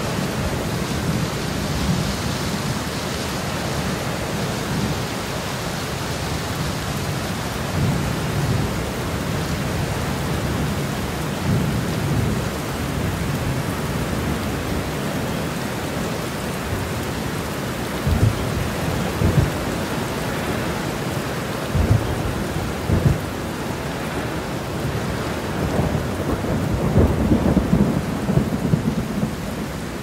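Steady rain with rolling thunder rumbling low underneath. A few sharper, louder peaks of thunder come about two-thirds of the way through, and a bigger rumble swells near the end.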